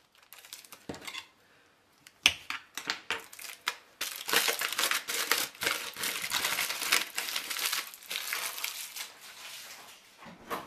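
Aluminium foil being unwrapped and crinkled by hand: a few scattered rustles and clicks at first, then dense crinkling from about four seconds in that dies down near the end.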